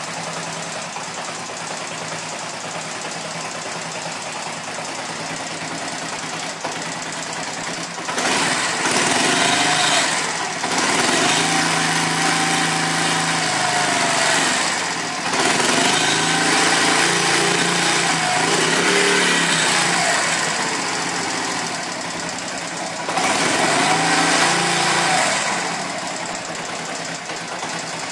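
Honda ECO 100 motorcycle's small single-cylinder four-stroke engine idling steadily, then revved up and let back down several times, each rev held for a few seconds, before settling back to idle near the end.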